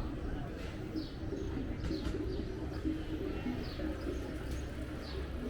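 A bird repeating a short, high chirp that falls in pitch, about once a second, over a steady low hum and murmur.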